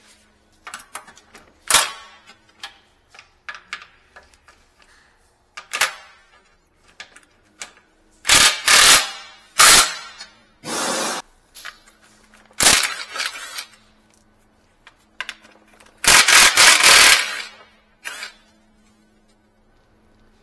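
Short bursts of an impact wrench rattling, the longest just past halfway and about a second long, between sharp single knocks of tools on metal during work on a Toyota Land Cruiser's radiator and front end.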